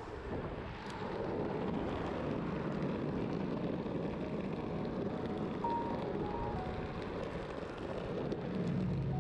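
Steady rushing wind and road noise from riding an electric longboard through town traffic.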